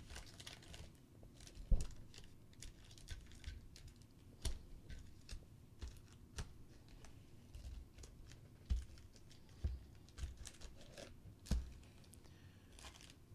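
Foil-wrapped trading card packs being shuffled and stacked by hand on a tabletop: irregular light taps and wrapper crinkles, with a few duller knocks as packs are set down and squared into a pile.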